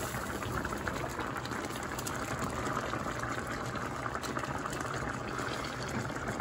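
Marsala sauce simmering with chicken in a pan, bubbling steadily, with a pot of pasta water at the boil alongside.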